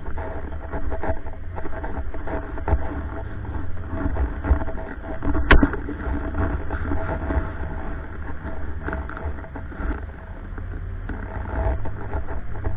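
Quad (ATV) engine running while riding, with heavy wind rumble on the microphone and scattered knocks; one sharp, louder knock comes about five and a half seconds in.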